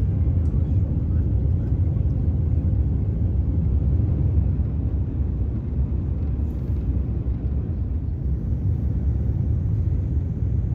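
Steady low rumble of cabin noise inside an Airbus ACJ319neo jet on its approach: engine and airflow noise heard from the passenger cabin.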